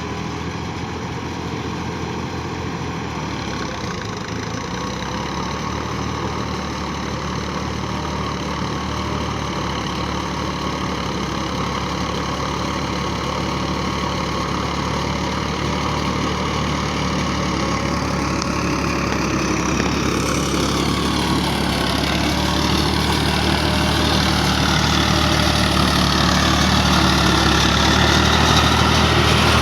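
Farm tractor engine running steadily, growing gradually louder, and turning harsher and noisier about two-thirds of the way through.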